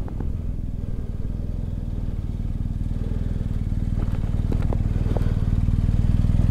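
Motorcycle engine running at low revs, steadily growing louder, with a few faint clicks around the middle.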